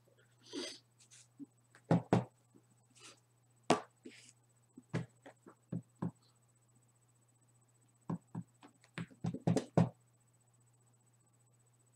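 Scattered light clicks, taps and knocks of hands handling things at a table, with a quick run of them about nine seconds in, over a steady low electrical hum and a faint high whine.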